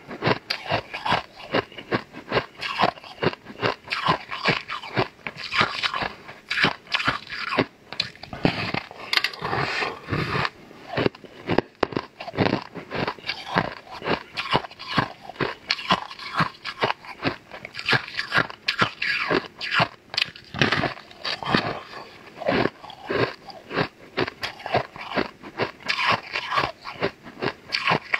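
Close-miked biting and chewing of a large, crunchy purple crystalline slab: rapid, crackly crunches one after another, without a pause.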